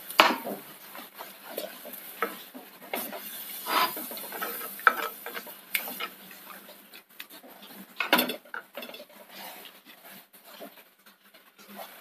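Slotted wooden spatula stirring a thin coconut curry in an earthenware clay pot, with irregular knocks and scrapes of wood against the pot and the slosh of the liquid. The strongest knocks come just after the start and about eight seconds in.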